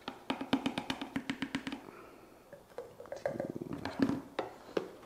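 Plastic scoop scraping and tapping in a tub of protein powder as powder is scooped out, with a fast run of light taps for about the first two seconds, then scattered clicks and knocks.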